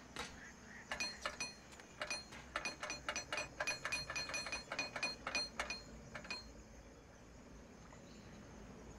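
Chimes tinkling: a rapid, uneven run of small clinks, several a second, starting about a second in and dying away after about six seconds, over a faint background.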